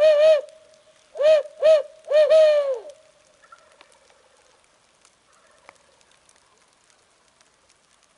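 Barred owl hooting in its rhythmic 'who cooks for you, who cooks for you-all' pattern: a run of short, closely paired hoots that ends about three seconds in on a longer, falling final note.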